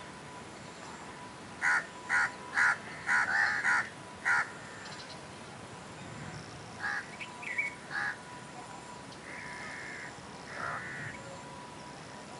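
Birds calling outdoors: a quick run of about six short calls a couple of seconds in, then a few fainter calls later.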